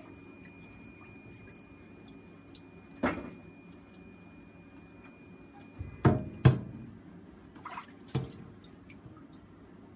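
A flexible endoscope handled in a stainless-steel sink of soapy water: water splashes and dripping, with a few sharp knocks against the sink. The loudest two come close together about six seconds in.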